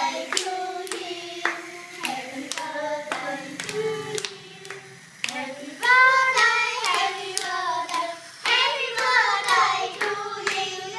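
A small group of women and children singing a birthday song together, clapping along to the beat. The singing grows louder about six seconds in.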